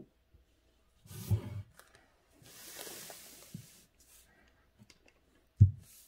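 Handling sounds as a sheet of calligraphy paper is shifted on the desk: a thud with a rustle about a second in, a sliding rustle lasting about a second and a half, and a sharp low knock near the end.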